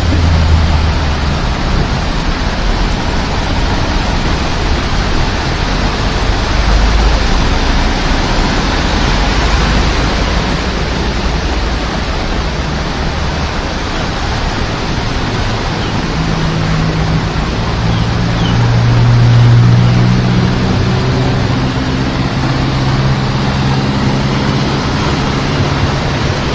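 Heavy rain falling in a steady, dense hiss. In the second half a vehicle engine's low hum rises over it, loudest about three-quarters of the way through.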